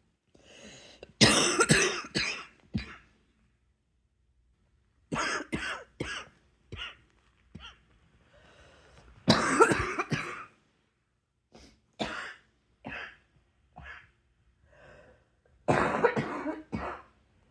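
A person's coughing fit: about five bouts of several coughs in quick succession, with short pauses between them.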